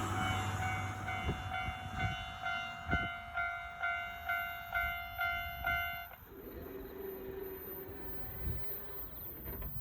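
Japanese railway level-crossing alarm ringing as the train clears the crossing, about two electronic dings a second. It stops about six seconds in, leaving a fainter steady hum.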